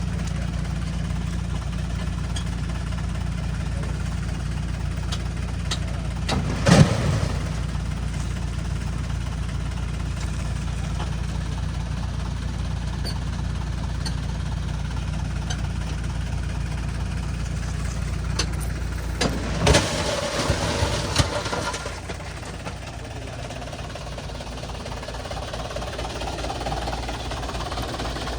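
Heavy diesel engine running steadily, with a loud metallic clank about seven seconds in and a few more knocks around twenty seconds. Just after these, the engine note drops and runs quieter.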